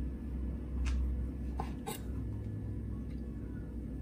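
Kitchen knife slicing tomatoes on a wooden cutting board: a few light, sharp taps of the blade on the board, over a steady low hum.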